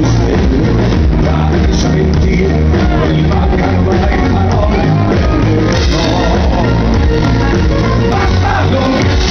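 Loud live band music played through a PA, a male lead singer's voice over a steady, heavy bass beat.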